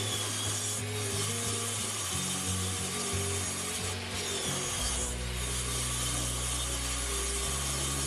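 Table saw cutting through the plywood base of a wooden sled as it is pushed across the saw table: a steady, dense sawing hiss with a few brief dips. Background music plays underneath.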